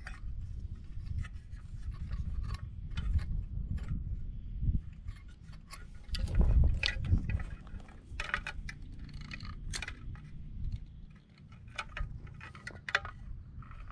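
Irregular clicks, taps and scrapes of hands handling a plastic light fixture and a caulking gun loaded with construction adhesive, over a low rumble.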